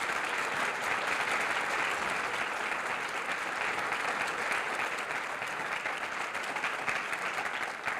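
Audience applauding steadily, a dense patter of many hands clapping, recorded on old quarter-inch reel-to-reel tape.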